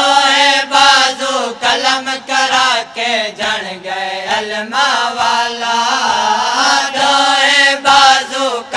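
A group of men chanting a Punjabi noha, a Muharram mourning lament, in unison. Rhythmic chest-beating (matam) strikes run between the sung phrases.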